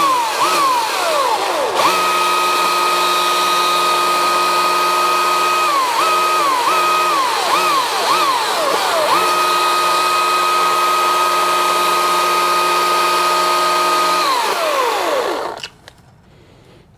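EGO CS2005 20-inch cordless electric chainsaw running on high speed and cutting wood: a steady high motor-and-chain whine whose pitch sags and recovers several times, then holds steady. Near the end the whine falls in pitch and dies away as the saw is released.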